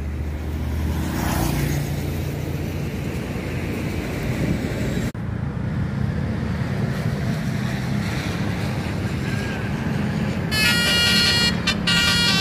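Bus engines and road traffic running steadily, then about ten seconds in a bus's multi-tone 'telolet' horn plays a quick, choppy run of high notes.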